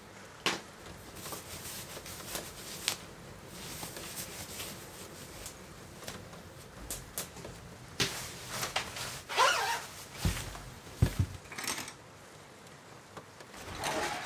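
Clothing rustling and a zipper as someone gets dressed, with scattered clicks and footsteps on a bare wooden plank floor and two heavy thumps about ten and eleven seconds in. Plastic water jugs are handled near the end.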